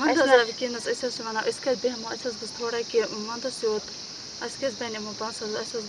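A woman talking in short phrases over a steady high hiss.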